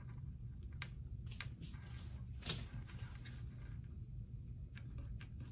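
Faint rustling and small clicks of plastic IV tubing and connectors being handled and joined, with one louder click about halfway through, over a low steady hum.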